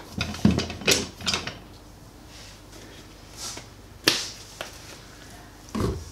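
A few sharp clicks and knocks from handling things at the stove beside a frying pan, mostly in the first second and a half, then a single click. Near the end a plastic oil bottle is set down on the wooden worktop with a dull knock.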